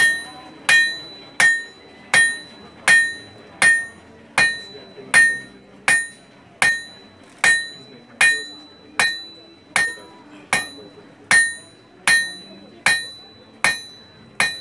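Blacksmith's hand hammer striking a red-hot iron bar on an anvil, forging it in a steady rhythm of a little under one and a half blows a second, each blow ringing clearly.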